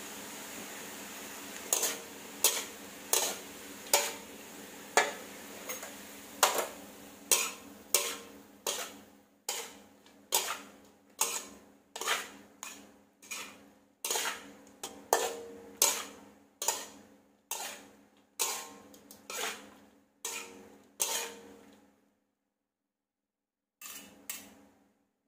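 Spatula striking and scraping a metal wok while stir-frying, a clanging stroke roughly every second, each briefly ringing. A steady low hum runs under the strokes until both stop about 22 s in; two more strokes come near the end.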